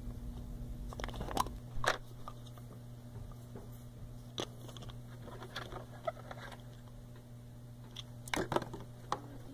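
Drill bit containers being handled: scattered clicks and light taps, the loudest cluster near the end, over a steady low hum.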